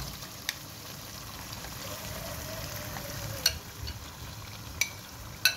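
Beef pieces frying in a pan of masala with a steady sizzle as a spatula stirs, clicking against the pan four times.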